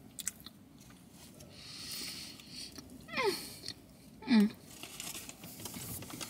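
Someone biting into and eating a fried ricotta-filled pastry: small mouth clicks and smacks, breathing through the nose and the rustle of its paper wrapper, with two short squeaky sounds sliding down in pitch about three and four seconds in, the second the loudest.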